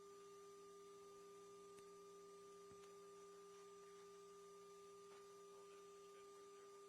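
Near silence: a faint steady hum, two constant tones over light hiss, on an aircraft intercom channel between transmissions.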